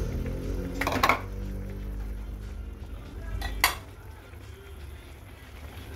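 Two sharp knocks of kitchenware on a cooking pan, one about a second in and a louder one about three and a half seconds in, over soft background music.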